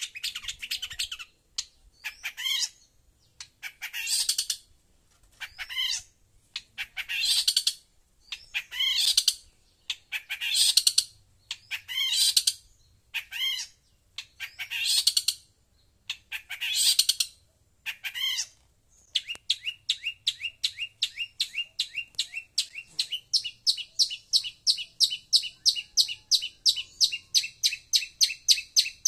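Long-tailed shrike (cendet) calling: scratchy calls about a second long, repeated every second and a half or so. About two-thirds of the way through it switches to a fast, steady series of short notes, about four a second, growing louder.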